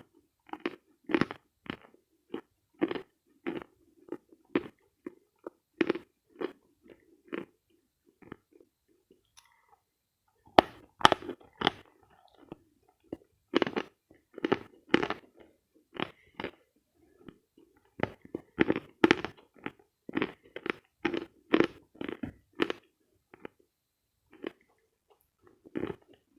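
A person chewing dense, dry edible chalk close to the microphone, with sharp crunches at about two a second. After a pause of about two seconds near the middle, a loud crunching bite starts another run of chewing. Near the end there is a short lull and one more crunch.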